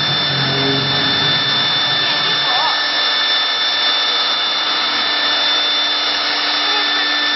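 Zhongke 1325 two-spindle CNC router engraving a wooden door panel: a steady, high-pitched whine from the spindle motors over the hiss of the bit cutting wood.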